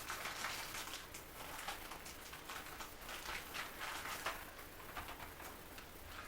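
Paper and packaging rustling and crinkling as they are handled, a run of short, irregular crackles.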